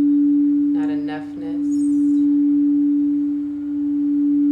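A steady, pure sustained tone a little below 300 Hz for sacral-chakra sound healing, swelling and dipping slowly in loudness. A short voice-like sound breaks in about a second in.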